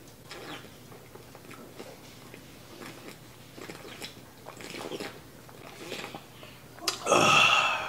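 A man gulping beer from a glass bottle: soft swallowing sounds every half second or so, then a loud exhale about seven seconds in.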